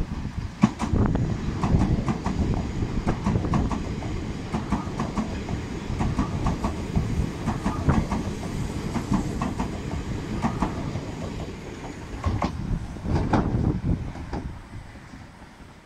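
Akita Shinkansen E6 series Komachi train running close past, its wheels clacking over the rail joints on top of a steady low rumble. The sound dies away near the end.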